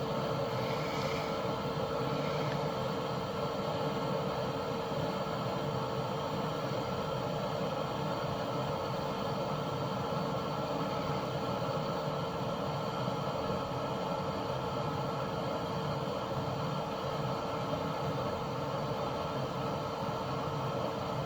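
Solar inverter running, a steady mid-pitched electrical hum with a buzzy edge that holds constant throughout.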